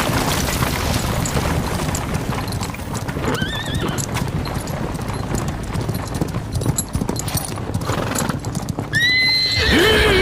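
A troop of cavalry horses clopping along in a dense clatter of hoofbeats. One horse whinnies about three seconds in, and a louder whinny comes near the end.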